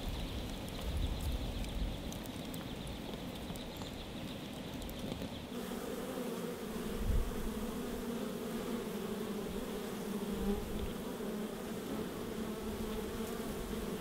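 A wood fire crackling faintly in a fire barrel. About five seconds in, this gives way to a steady hum of many honey bees buzzing.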